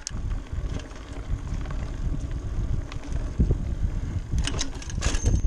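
Wind buffeting the microphone over the rumble and rattle of a Giant Talon 3 29er mountain bike rolling fast over a rocky dirt trail, starting suddenly and going on unevenly. There are a few sharp rattles near the end.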